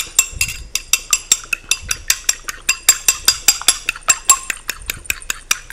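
A metal fork beating two eggs in a china bowl: quick, even clinks of the fork against the bowl's sides, about six a second, each with a short bright ring.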